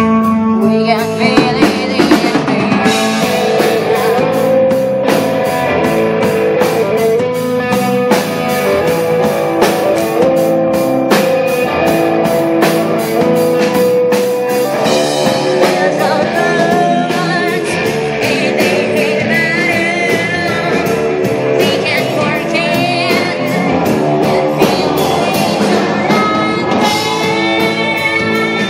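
Live rock band playing amplified: electric guitar, bass guitar and drum kit, with keyboard, loud and steady throughout.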